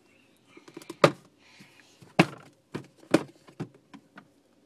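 A clear plastic storage box being handled and opened: a run of sharp plastic clacks and knocks, the loudest about one and two seconds in, followed by several lighter ones.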